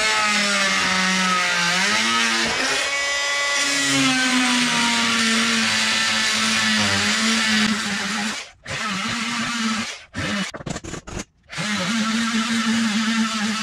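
Handheld electric power tool, fitted with something other than a grinding disc, running against the rusted steel of a truck's rocker panel to cut out spot welds; its motor whine sags in pitch as it bites. It stops about two thirds of the way through, is triggered on and off a few times, then runs steadily again.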